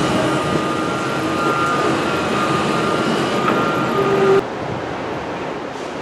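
Construction-site noise: a steady mechanical drone with a faint whine and a few clicks. About four seconds in it cuts off abruptly to a quieter, even wind-like rush.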